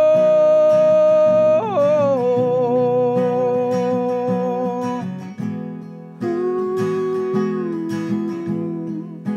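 A man singing long held notes over a strummed acoustic guitar, the voice stepping down to a lower note about a second and a half in and again about six seconds in.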